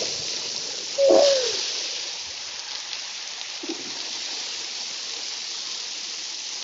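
Steady rush and patter of falling water from a waterfall installation, with a brief falling-pitched call about a second in and a fainter short one a few seconds later.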